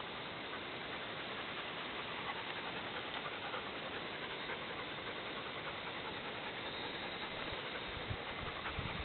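A steady, even hiss, with a few low rumbles near the end.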